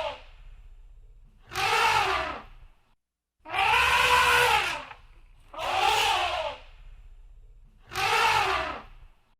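Elephant trumpeting: harsh, brassy blasts about a second long, each rising and then falling in pitch. The tail of one blast is at the start, then four more follow about two seconds apart.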